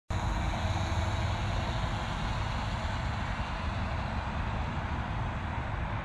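Steady outdoor rumble with an even hiss over it, unbroken and without distinct events.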